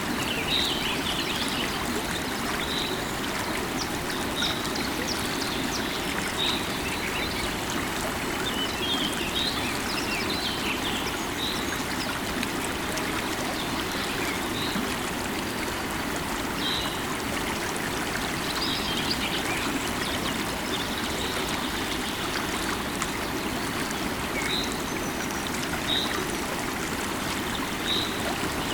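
Steady rush of running river water, with a small bird giving a short high call every second or two and a couple of brief spells of quicker chirping about a third and two thirds of the way through.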